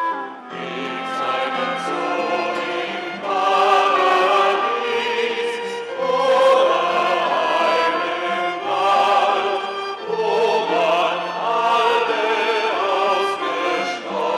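A small mixed choir of men's and women's voices singing a song together in harmony, in long phrases that swell and break every second or two.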